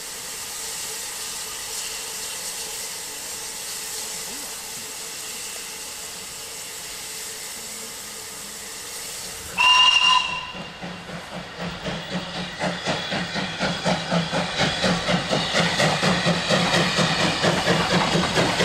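Unrebuilt Bulleid Battle of Britain class steam locomotive standing with steam hissing steadily. About halfway through, a steam locomotive whistle sounds once, briefly. Then a steam locomotive's rhythmic exhaust beats draw closer and grow louder as it approaches with a train.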